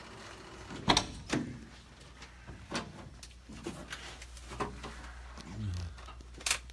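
About half a dozen sharp knocks and clicks at irregular intervals, over a faint low steady hum.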